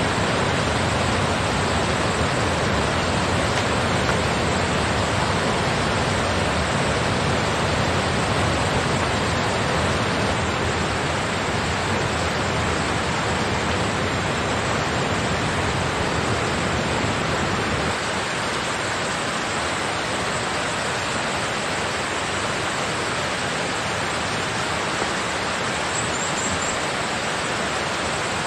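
Steady rushing water sound, even and unbroken, slightly less deep and a little quieter from about two-thirds of the way in.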